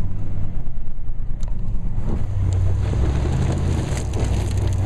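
Truck engine running hard while a tyre spins in deep snow and dirt, flinging debris, with a few sharp clicks: the wheel has lost traction and the truck is stuck.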